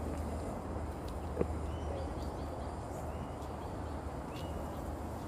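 Outdoor ambience with a steady low rumble of breeze on the phone microphone and a bird giving three short chirps about a second and a half apart. One sharp click just over a second in.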